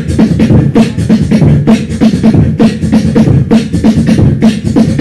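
A human beatboxer performing a fast, steady beat into a handheld microphone: sharp mouth snares and hi-hat clicks over low kick-drum thumps, amplified through the room's speakers.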